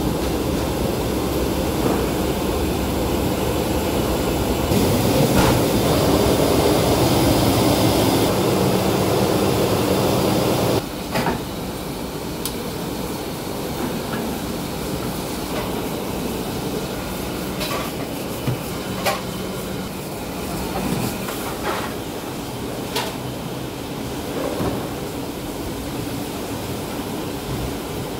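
Gas burner under a stockpot running with a steady low roar, louder from about five seconds in, which stops abruptly about eleven seconds in. After that, a long kitchen knife scraping in strokes across a whetstone, with occasional sharp clicks.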